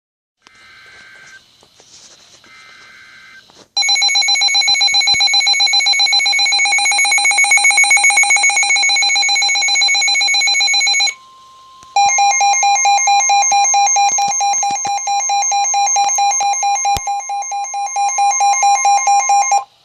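Weather radio emergency alert for a severe thunderstorm warning. Two short faint data bursts come first, then a loud, rapidly pulsing buzzing alarm. About eleven seconds in, a steady high warning tone starts and sounds together with the returning buzz until both stop just before the spoken warning.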